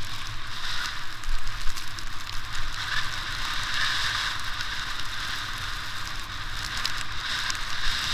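Steady hiss of a rider sliding down through fresh powder snow, with a low wind rumble on the camera's microphone and small crackles of snow throughout.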